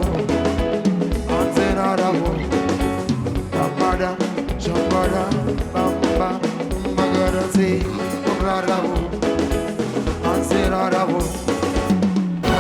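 Live band playing an upbeat African song, drums keeping a steady beat under pitched instruments.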